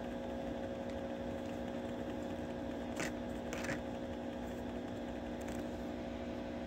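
A steady machine hum with a couple of faint tones, interrupted by two brief rustles or clicks about three seconds in.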